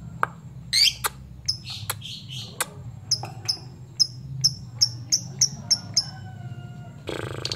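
Yellow pastel lovebird giving a series of sharp, high chirps that come faster after about three seconds, then breaking into a loud, rapid rattling chatter near the end: the calling used to draw out a rival lovebird.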